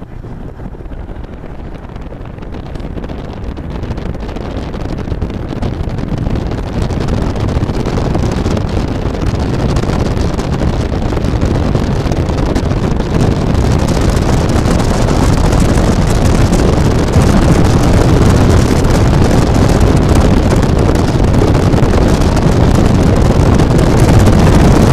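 Wind rushing over the microphone through an open car window, mixed with road noise. It builds steadily louder over the first half, then stays very loud.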